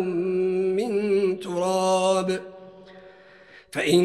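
A man's solo Quran recitation in tajwid style, drawn out on one long, ornamented held note. The voice stops about two and a half seconds in for a breath pause of just over a second, then starts again near the end.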